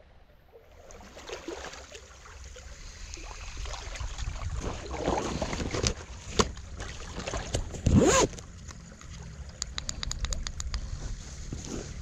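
Fishing gear and clothing being handled close to the microphone over a low steady rumble, with a brief loud knock about eight seconds in and a run of quick clicks near the end.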